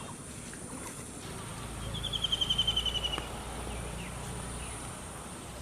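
Rural outdoor ambience with a steady high insect whine. About two seconds in, a rapid trill of a dozen or so short chirps lasts about a second.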